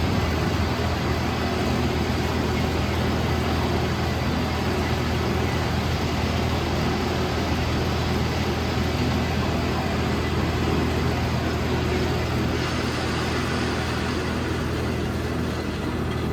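Lathe running steadily, a low motor hum under a constant hiss of machining noise.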